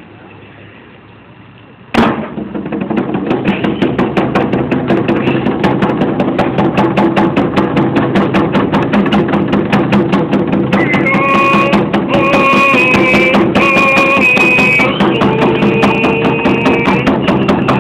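A group of hand drums starts together with one loud beat about two seconds in and keeps a steady, even beat, with a group of voices singing a Native American song over it. A high voice joins the singing about halfway through.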